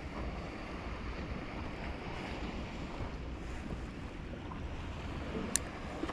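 Sea water washing and lapping steadily, with wind rumbling on the microphone. One sharp click comes near the end.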